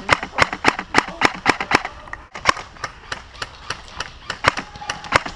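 Airsoft gun firing a quick, irregular string of single shots, heard as sharp snapping clicks. They come about four a second at first, then more spaced out after about two seconds.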